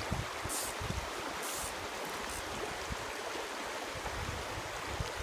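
Shallow creek water running steadily over rocks and riffles.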